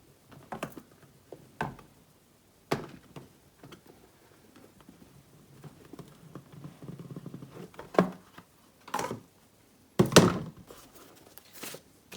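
Cardboard box and packaging being handled: irregular taps, thunks and rustling of cardboard and paper, with several louder knocks in the second half.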